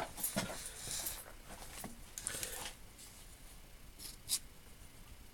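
Small metal measuring tool being handled: faint rubbing and light clicks over the first few seconds, then a sharper click about four seconds in.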